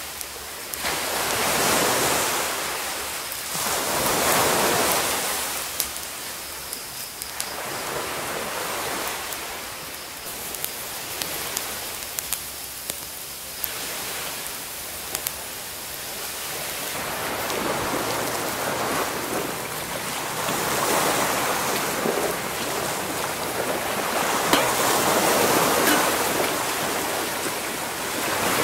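Small sea waves washing onto a rocky shore, the wash swelling and falling away every few seconds. A wood campfire crackles now and then with sharp pops through the middle stretch.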